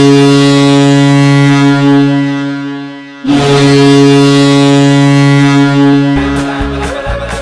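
Ice hockey goal horn, a recorded stand-in rather than a real air horn, sounding two long, low blasts; the first fades out and the second cuts in about three seconds in. Near the end the goal song's beat starts under the horn.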